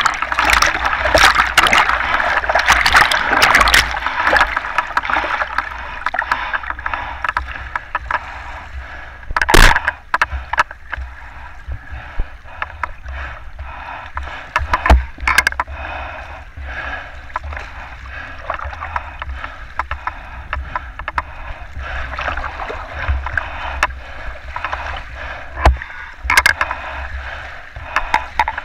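Sea water splashing and gurgling around a camera that dips in and out of the water, loudest and densest in the first few seconds. A steady low rumble runs underneath, and a few sharp knocks come about ten, fifteen and twenty-six seconds in.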